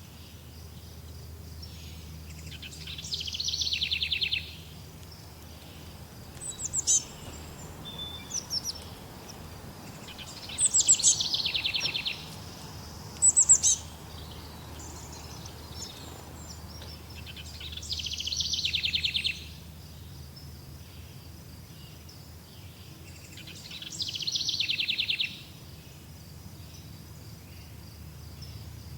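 Songbird singing a fast trill that falls in pitch, about a second and a half long, repeated four times roughly every seven seconds. Other birds give short, very high chirps between the songs, over a steady low background rumble.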